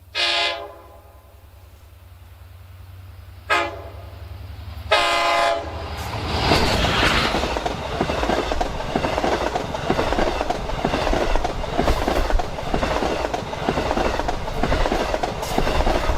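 Long Island Rail Road DE30AC/DM30AC diesel locomotive's air horn sounding three blasts: a short one, a very short one a few seconds later, then a slightly longer one. About six seconds in, the train passes close by, a loud rumble with rapid clicks of wheels over the rails.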